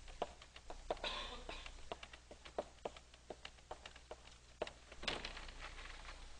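Chalk writing on a blackboard: a run of short taps and clicks, with a couple of brief scratches, as letters are written.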